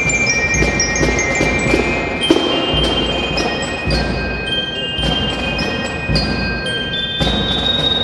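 Marching band percussion section playing: bell lyres ring a melody of high, sustained notes over snare and tenor drum strokes and regular bass drum beats.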